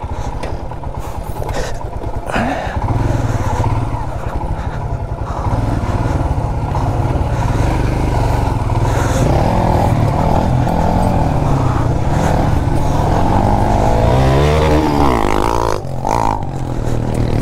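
Motorcycle engine running as the bike is ridden over a rough dirt track, heard close up from the rider's position. The engine note climbs and falls a few times near the end, with a brief dip just before the end.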